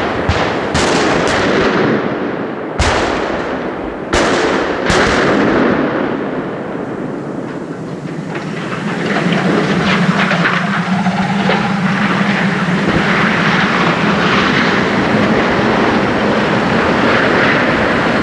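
Explosive demolition charges firing in sequence to fell a steel television tower: about six sharp blasts in the first five seconds, each trailing off in an echo, followed by continuous loud rumbling noise.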